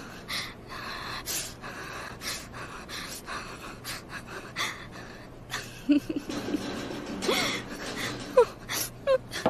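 Breathy gasps and stifled snickering from a young woman, coming in many short puffs, with brief squeaky rises and falls in pitch in the second half.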